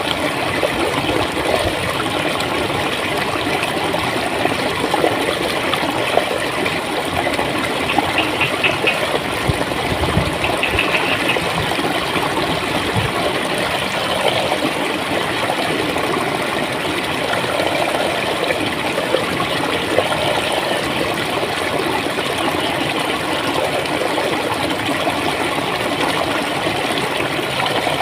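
Water flowing and gurgling steadily.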